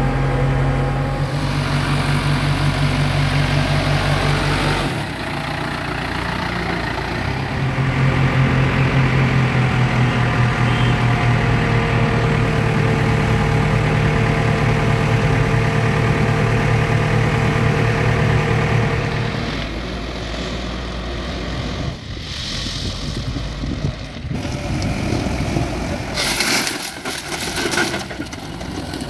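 Bobcat B900 backhoe loader's diesel engine running as it drives along a road, heard from inside the cab, with a steady whine over the engine through the middle. Near the end the engine sound changes and there is a short burst of noise.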